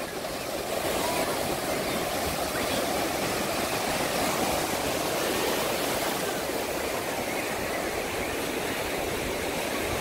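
Sea waves breaking and washing in the shallows: a steady rushing surf noise.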